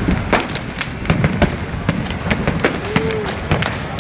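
Fireworks display: aerial shells bursting one after another, many sharp bangs and crackles in quick succession.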